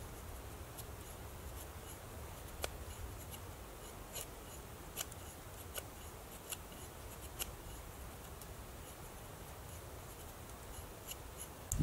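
Survival Lilly APO-1 fixed-blade bushcraft knife shaving curls off a wooden stick to make a feather stick: faint, short scraping strokes at irregular spacing, about one a second.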